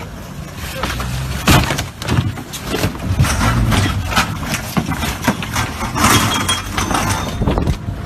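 Repeated knocks and clattering as two small boats come together and a man clambers across the gunwale, over a running outboard engine and splashing water.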